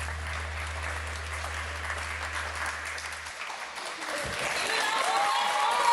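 Audience applauding steadily at the end of a pole dance performance, with voices calling out over the clapping near the end. A low hum underneath cuts off about three seconds in.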